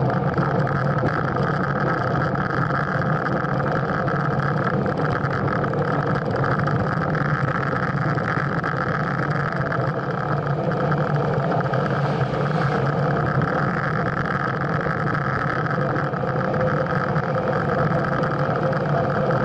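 Steady rush and rumble of a road bike rolling downhill at about 34 km/h, picked up by a camera mounted on the handlebar: wind over the camera and tyre-on-asphalt vibration carried through the bars, with no change in the noise throughout.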